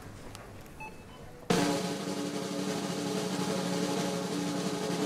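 A quiet stretch with a few faint short beeps, then about a second and a half in a loud snare drum roll starts suddenly and runs on, with steady low tones held beneath it.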